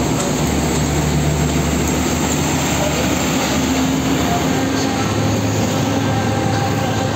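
A Hino tractor-trailer's diesel engine and tyres going past close by in slow heavy-truck traffic, a steady low engine note over road rumble. The engine note drops to a lower pitch about halfway through.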